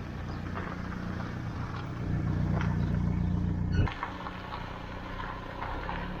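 Van engine and road noise heard from inside the cab while driving, a steady low rumble. It grows louder about two seconds in, then drops abruptly about four seconds in.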